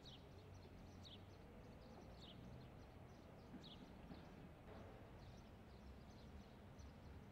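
Faint outdoor ambience: a bird gives a short, high, falling call about once a second, the calls fading after the first few seconds, over a low steady rumble.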